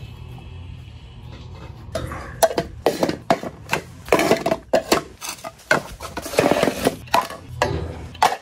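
Dog food bowls being picked up off a tiled floor and stacked: a run of clattering knocks and scrapes starting about two seconds in.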